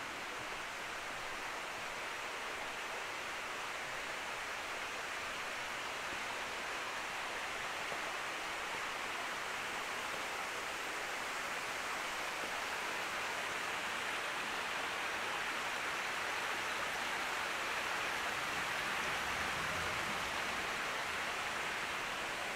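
Steady rushing of running water, growing a little louder toward the end.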